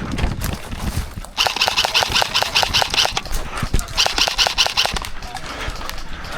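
Airsoft guns firing on full auto: two rapid bursts, about seven shots a second, the first lasting about two seconds and the second about one.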